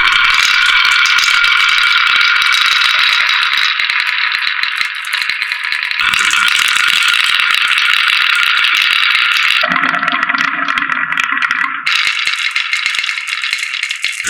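Many marbles rattling and clattering as they roll down marble run tracks, a dense, continuous rattle that changes character abruptly a few times.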